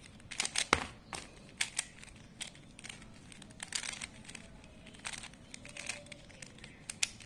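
Tamboora 3x3x3 plastic speed cube being turned quickly by hand, its layers making a run of short, irregular clicks and rattles.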